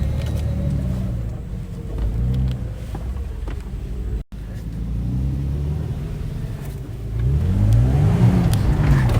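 Toyota FJ Cruiser's 4.0-litre V6 engine revving up and down as the 4x4 works through sand, its pitch rising and falling several times and climbing strongly near the end. A few light knocks and rattles are audible, and the sound cuts out for an instant about four seconds in.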